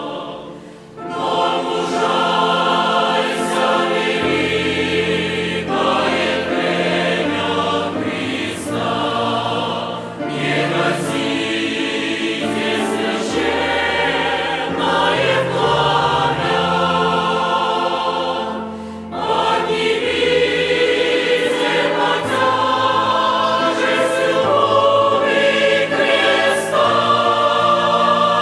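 Choir singing a hymn in several-part harmony, with short breaks between phrases about a second in and around nineteen seconds.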